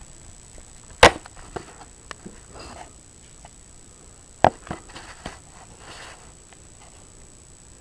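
Handling knocks and rustles as a camera is moved and set in place: two sharp knocks, one about a second in and one a little past the middle, with lighter clicks and rustling between them.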